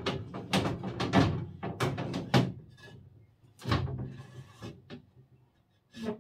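A quick run of sharp knocks and clacks, then a few single knocks further apart. A slim T5 grow-light bar is being handled and pushed into place against the metal frame and glass of an IKEA Milsbo cabinet.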